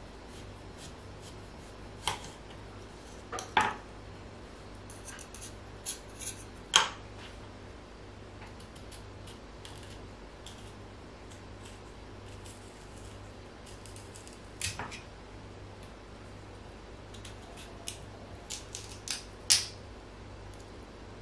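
Kitchen utensils clicking and scraping against a dish or board in about a dozen short, scattered strokes with quiet gaps between them, over a faint steady hum.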